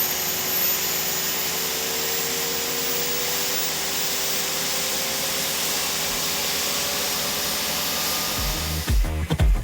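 Steady rushing machine noise, like a turbine or blower running, from the Lynx helicopter under test, with a faint tone slowly falling in pitch. Music with a beat cuts back in near the end.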